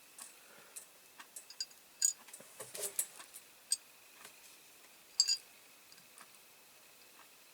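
Irregular small clicks and taps of small model-car parts being handled and set down on a workbench, with sharper clicks about two, three and five seconds in.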